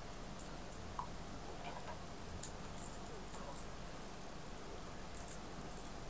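Soft, irregular crinkling and ticking of plastic raffia string being handled and knotted by hand.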